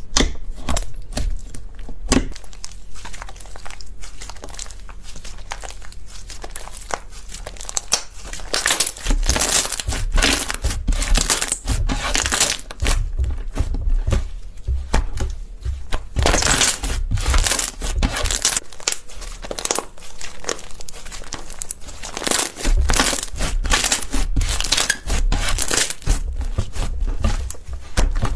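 Slime being squeezed and worked by hand close to the microphone, giving a dense run of small crackles and crunches. It is quieter for a few seconds after the start, then busier and louder in repeated swells.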